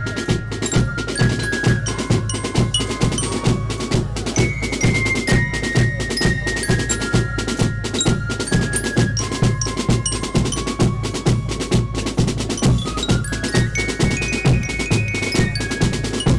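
Marching band playing a march: snare and bass drums keep a steady beat under a melody on flutes and a bell lyra.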